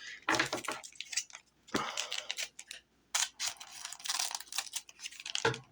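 Trading cards being handled: several short bursts of paper rustling and clicking as the cards are shuffled and flipped.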